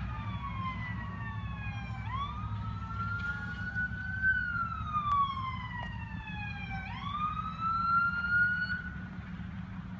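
Sirens of a fire department ambulance and fire truck on an emergency run, in a slow wail that falls and rises in pitch. Twice, after a long fall, the pitch jumps sharply back up, and the sirens fade near the end. A low traffic rumble runs underneath.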